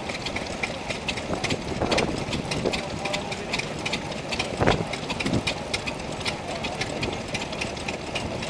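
Vintage stationary engines running, a rapid, even clatter of ticks of about five a second from their moving parts, with a louder thump about two and again about four and a half seconds in.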